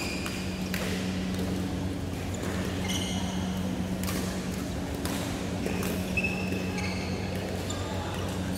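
Badminton rackets striking shuttlecocks in rallies on several courts, a string of sharp cracks, with sneakers squeaking briefly on the court floor. A steady low electrical hum runs underneath.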